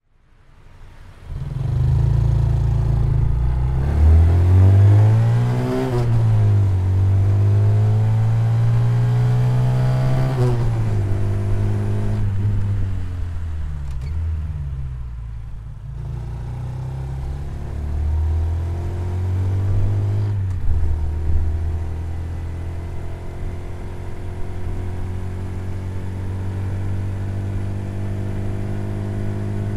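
Honda Super Cub C125's single-cylinder four-stroke engine riding through the gears. The exhaust note climbs and drops back at each shift several times, eases off once, then settles into a steady cruise.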